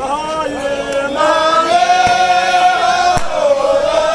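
A group of voices singing a Tibetan song together in long, drawn-out held notes, growing louder about a second in.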